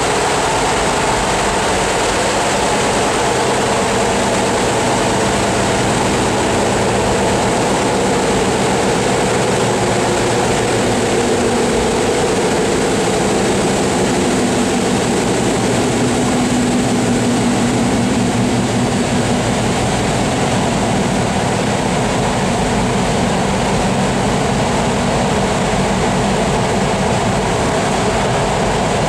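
Steady running noise of a passenger train at speed, heard from inside the carriage: a constant rumble of the wheels on the rails and the car body, with no let-up or change.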